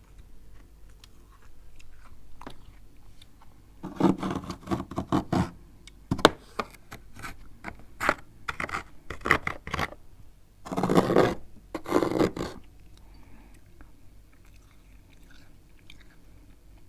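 Close-miked chewing of freezer ice and frost: crisp crunches in quick clusters starting about four seconds in, loudest near the end of the run, stopping a few seconds before the end.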